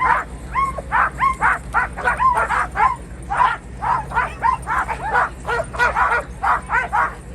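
Sled dogs barking and yipping rapidly, several barks a second from more than one dog, with a few rising yelps among them: a harnessed team eager to run before its start.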